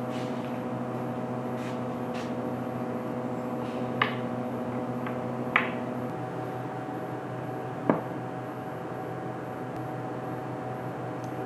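Three sharp knocks of wood on wood, about four, five and a half and eight seconds in, as short wooden dowels are set into holes in an oak tabletop. A steady hum runs underneath.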